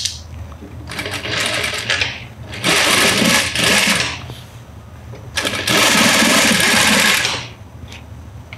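Sewing machine stitching in three short runs, stopping briefly between them while the fabric is turned along a curved seam.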